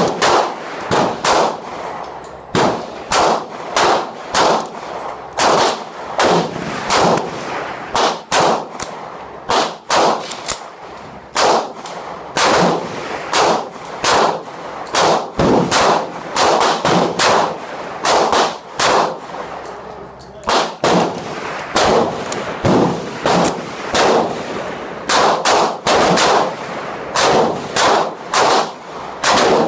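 Gunfire: dozens of sharp shots at irregular intervals, often one or two a second, each followed by a short ringing echo.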